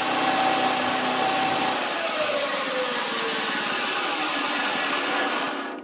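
Homemade gas-engine bandsaw sawmill cutting through a green sycamore log: a steady high hiss from the blade over the engine's drone, with a tone that slides down in pitch around the middle. The sound cuts off near the end.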